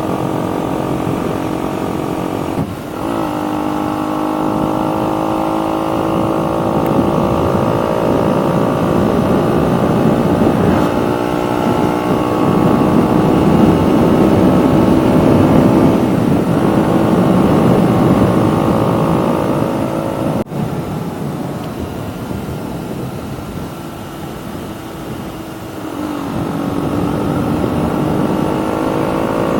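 KTM Duke 125's single-cylinder four-stroke engine, fitted with an aftermarket full exhaust system, running under way on the road. Engine pitch shifts with throttle and gear changes: a brief dip about three seconds in, a quieter stretch, then the engine picks up again near the end.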